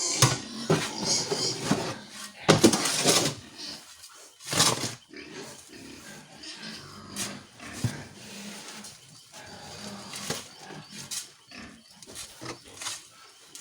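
Pigs grunting and squealing, with the two loudest cries about two and a half and four and a half seconds in.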